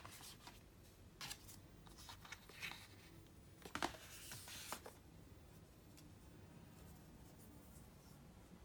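Packaging being handled by hand: a sharp click at the start, then a few short rustles and clicks, the last about five seconds in, followed by faint room tone.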